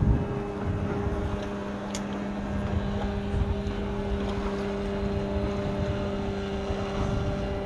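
An engine drones at one steady pitch throughout, with no rise or fall.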